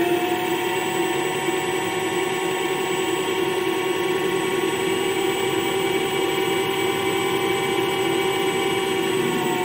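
Home-built CNC lathe's spindle motor running at about 800 RPM with a steady, even whine while an 8 mm drill bit is fed into the spinning workpiece. The speed is too low for the drill, by the machinist's own judgment.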